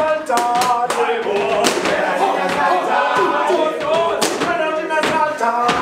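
A group of young men singing together in chorus for a South African gumboot dance, with several sharp boot stomps and slaps cutting through the song.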